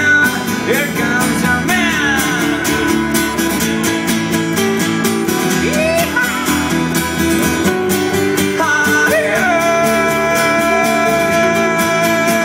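Small band playing a rock song live: acoustic and electric guitars over an upright double bass, with long held notes and a few sliding ones.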